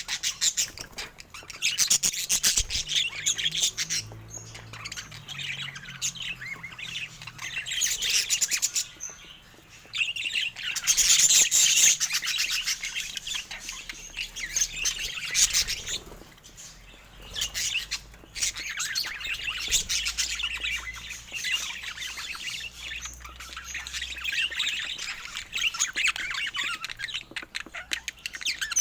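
Budgerigars chattering: fast, continuous warbling with squawks and chirps, broken by brief lulls about a third of the way in and again a little past halfway.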